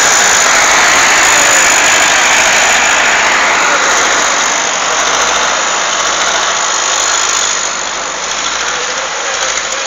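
Farm tractor engine running under load as it pulls a loaded log trailer, fading gradually as it moves away.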